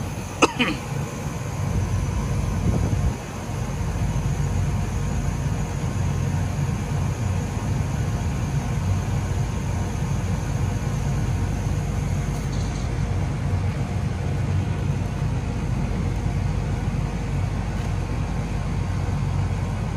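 Outdoor air-conditioning condensing unit running with a steady low hum from its compressor and condenser fan while it is being charged with R-410A refrigerant. A single sharp click sounds about half a second in.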